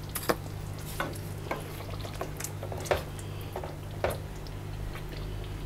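Wooden spatula stirring thick gravy with whole potatoes in a stainless steel pan, giving scattered soft scrapes and knocks against the pan, over a low steady hum.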